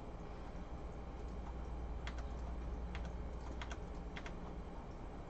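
Several scattered computer keyboard key presses, sharp separate clicks in the second half, over a steady low hum.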